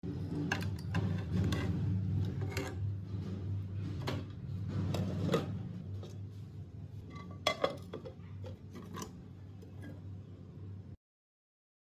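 Nonstick frying pan, plate and glass pan lid knocking and clinking against each other over a steady low hum. The loudest two knocks come about seven and a half seconds in, and the sound cuts off suddenly near the end.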